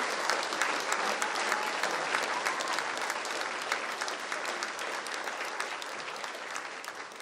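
Audience applauding: dense, steady clapping that gradually gets quieter.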